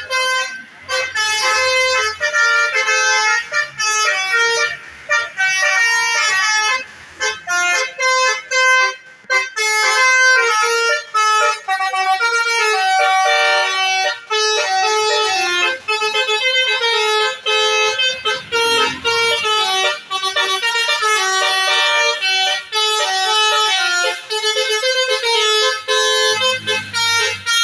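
Basuri telolet multi-tone musical horn on a tour bus playing a long, loud melody: rapid stepped notes with short breaks between phrases.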